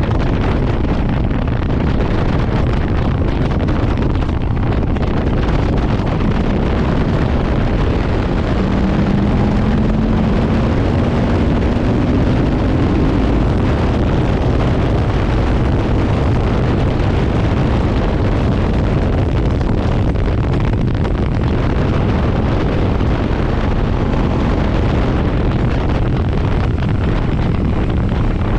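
Heavy wind buffeting on the microphone of a Ducati Monster S4RS ridden at speed, over the bike's engine. Partway through, the engine note rises once in pitch as it revs up.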